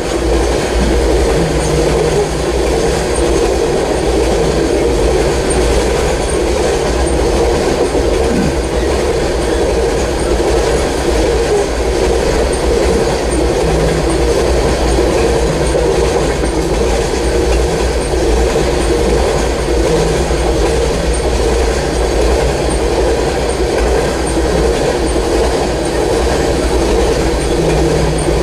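Norfolk Southern freight train rolling past a grade crossing: a steady, loud rumble of freight cars going by.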